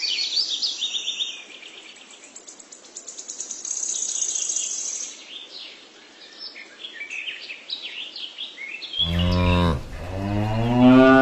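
Small birds chirping and trilling, then a cow moos twice near the end, the second moo longer and louder, rising and falling in pitch.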